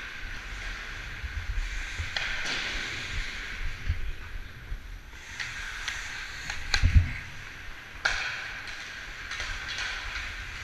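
Ice skate blades scraping and carving the ice in repeated strides, with sharp clacks of a hockey stick on the puck and ice. About seven seconds in, a heavy thump near the boards is the loudest sound.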